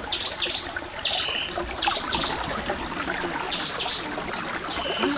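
Stream water trickling, with a bird repeating short high calls over it.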